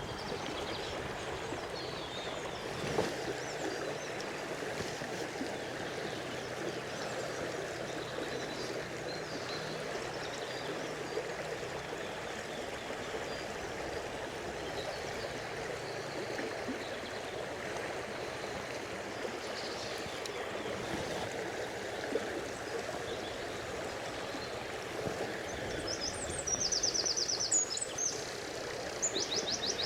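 Fast-flowing river water rushing steadily over rocks. Near the end comes a brief run of rapid, fine ticking.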